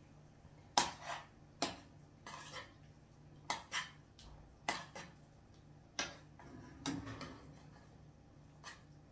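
A cooking utensil knocking and clinking against a pan, about ten short, sharp strikes at uneven intervals, as the fish in the pan is worked loose and turned.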